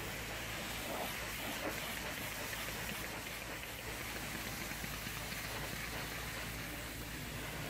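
High-pressure water jet spraying a steady hiss against the sheet-metal rear doors and window of a minibus, with a steady low hum underneath.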